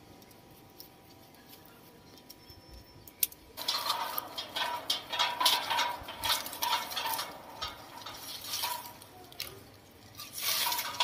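Leaves and twigs rustling and rubbing in irregular bursts as a young macaque climbs through a leafy shrub. The rustling starts about a third of the way in, dies down, and returns briefly near the end.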